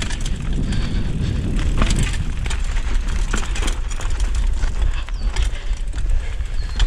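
Mountain bike rolling down a rocky dirt trail: tyres crunching over stones and loose ground, with many quick clicks and rattles from the bike over a steady low rumble.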